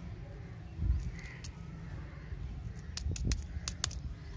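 A few sharp clicks and crackles of a plastic lollipop wrapper being handled, mostly bunched about three seconds in, over a low rumble.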